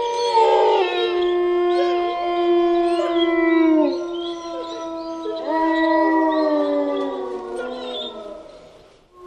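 Wolves howling in chorus: several long howls overlap, each held on a steady pitch and sliding down at its end, with new howls rising in about halfway through. The chorus fades out near the end.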